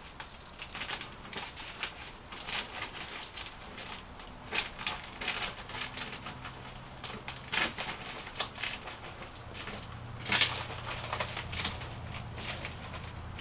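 Clear plastic stretch wrap crinkling and crackling as it is pulled and peeled off a cardboard box, with irregular sharp rustles and two louder crackles about seven and ten seconds in.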